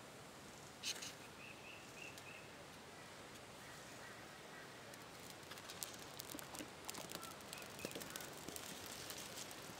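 A ferrocerium fire-starter rod struck once about a second in, giving a short rasping scrape. A bird gives four short chirps just after it. Near the end come many faint crackles and ticks.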